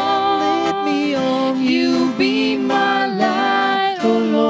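A hymn being sung: a voice holding long, slightly wavering notes over instrumental accompaniment.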